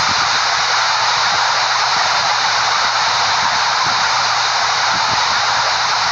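Steady loud hiss with a faint low hum underneath, unchanging throughout.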